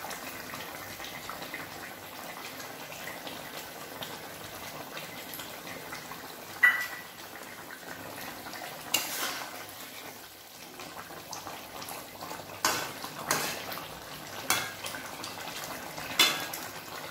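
A metal spatula clinks against a metal kadai about six times while curry is stirred in it, the first clink the loudest and briefly ringing. A steady low hiss runs beneath.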